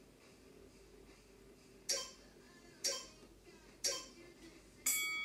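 Four sharp metallic clinks evenly spaced about a second apart; the last one rings on with a steady tone.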